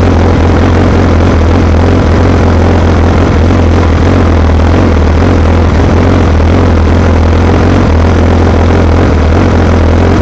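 BMW S1000RR's inline-four engine idling steadily in neutral, loud and close.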